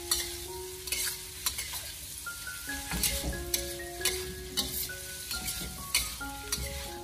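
Pork belly, ginger and garlic sizzling in hot oil in a wok while being stir-fried over medium-low heat, with a metal spatula repeatedly scraping and knocking against the wok. Faint background music plays underneath.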